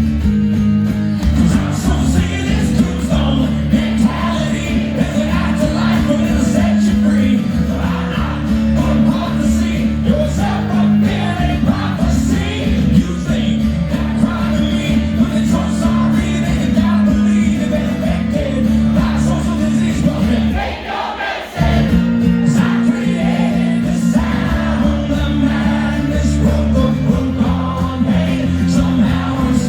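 Live acoustic rock song: strummed acoustic guitar with a man singing the lead vocal, the band stopping briefly about twenty-one seconds in before coming straight back.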